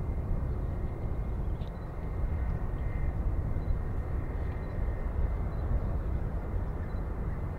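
Jet airliner engine noise at a distance: a steady low rumble with a faint steady high whine over it.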